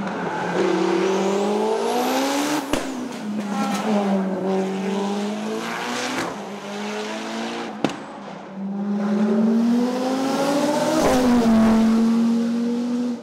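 Race car engine accelerating hard, its pitch climbing and then dropping sharply at each gear change, three times.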